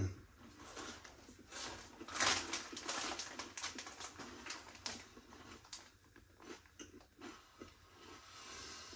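Close-up chewing of crunchy Kurkure corn-rice snack pieces: a rapid run of crunches, loudest about two seconds in, thinning out toward the end.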